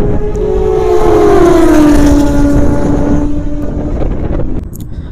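Wind rushing over the microphone with an electric scooter motor's whine, which slides down in pitch about a second in as the scooter slows and fades out near the end.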